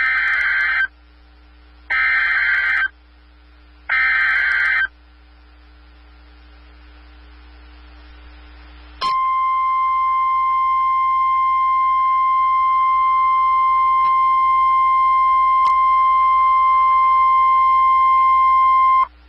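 NOAA Weather Radio emergency alert: three bursts of warbling digital SAME header data, each about a second long and two seconds apart. These are followed about four seconds later by the steady 1050 Hz warning alarm tone, held for about ten seconds before it cuts off. Together they signal that a warning, here a Special Marine Warning, is about to be read.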